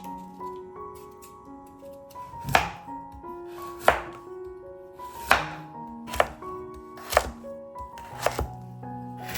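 Knife cutting food down onto a cutting board: six separate, sharp cuts, about a second or more apart, beginning a couple of seconds in. Soft background music plays throughout.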